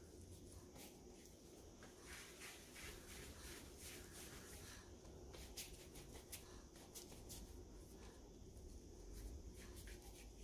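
Near silence, with faint soft pats and rubbing from floured hands shaping a piece of brioche dough into a ball, busiest in the middle of the stretch.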